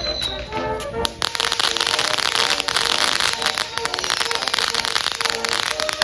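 Consumer fireworks going off: a falling whistle in the first second, then from about a second in a dense, continuous crackle of many sharp pops over a loud hiss, typical of a crackling fountain or crackle cake.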